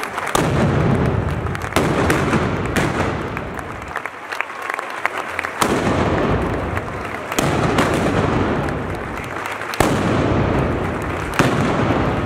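Black-powder arquebuses firing blank charges: a loud report every second or two, each trailing off over a second or more.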